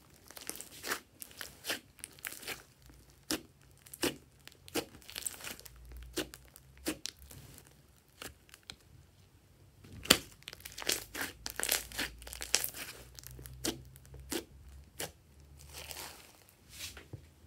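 Hands squeezing, folding and stretching a mass of glossy slime, making an irregular run of sticky clicks, pops and crackles, with one sharp pop louder than the rest about ten seconds in.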